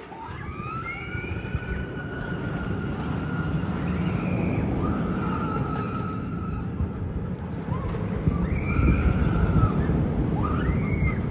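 Suspended looping roller coaster train rumbling along its steel track through the inversions, the rumble building louder in the second half, with riders screaming in several long rising-and-falling wails.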